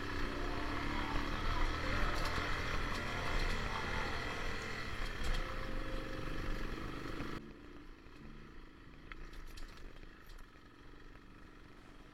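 Motorcycle running while being ridden on a dirt road, with engine drone and wind noise. About seven seconds in it cuts off abruptly, leaving a much quieter sound.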